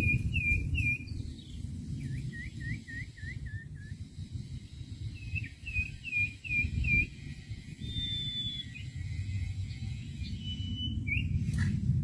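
Common iora (sirtu) singing: three runs of five or six quick whistled notes, each note dipping then rising, followed by two single longer whistles near the end. A steady low rumble runs underneath.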